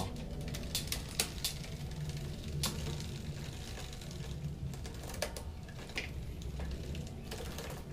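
Bicycle drivetrain turned with the chain on the largest rear cog, giving irregular light clicks and rubbing as the rear derailleur touches the cog: a sign that the derailleur sits too close to the cassette.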